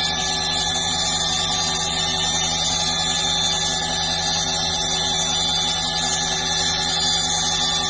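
CNC mill spindle running steadily with a constant whine while its engraving cutter cuts a line around a part turning in a tilted fourth-axis rotary chuck.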